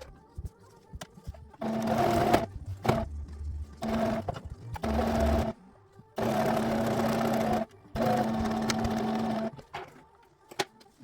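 Domestic sewing machine stitching in five short runs, its motor starting and stopping between them, the longest about a second and a half, with small clicks in the pauses.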